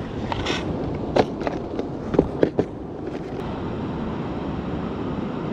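A quick run of sharp knocks and clicks, about seven in two seconds, as hands and body bump the wooden pier railing and deck. Behind them runs a steady wash of wind and surf.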